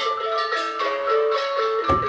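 Background music: a melody of quick mallet-instrument notes over a steady held high tone, with bass and drums coming in near the end.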